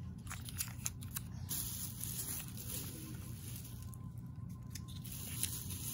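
A few faint sharp clicks and light rustles as plastic dipping-sauce cups and food packaging are handled and set down, over a low steady room hum.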